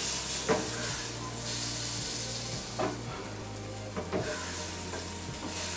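Chopped button mushrooms frying in foaming melted butter in a steel pan, with a steady sizzle.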